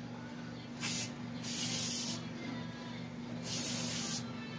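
Aerosol cleaner can spraying a rear disc brake assembly in three hissing bursts: a short one about a second in, a longer one around two seconds, and another near the end.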